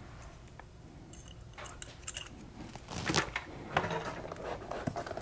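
A product box being opened by hand: faint scrapes and small clicks of cardboard and packaging being handled, with a few louder rustles about three seconds in.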